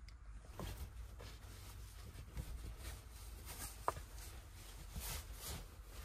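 Faint rustling of bedding and clothing with scattered soft knocks and taps as a person moves about and gets dressed inside a small truck camper shell. One sharper click stands out about four seconds in.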